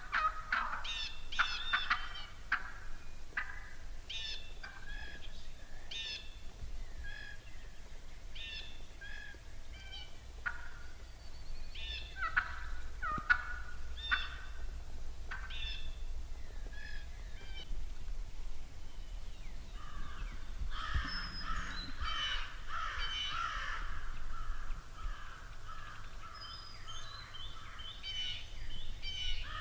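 Wild turkeys calling: a string of sharp, separate cutting notes, then about 20 seconds in a dense, rattling run of calls that picks up again near the end.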